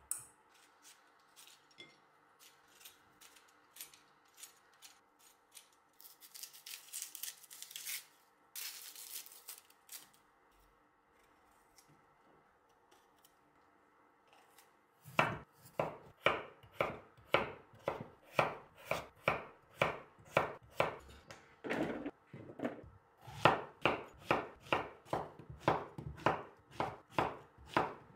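Knife chopping vegetables on a wooden cutting board, a steady run of strokes about two a second starting about halfway in. Before that come quieter rustling and scraping sounds of vegetables being peeled by hand.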